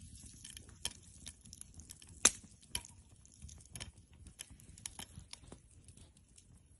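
Wood campfire crackling, with irregular sharp pops, the loudest about two seconds in.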